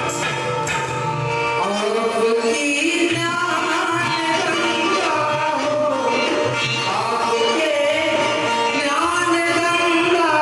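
Live Marathi folk song: a singing voice with melodic runs over a hand-drum rhythm and instrumental accompaniment.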